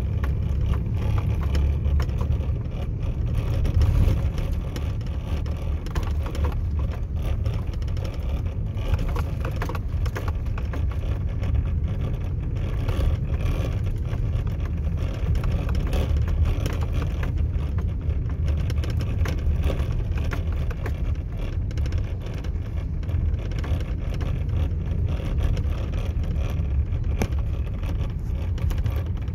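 A vehicle driving along a sandy dirt track, heard from inside the cab: a steady low rumble of engine and road noise, with light clicks and rattles throughout.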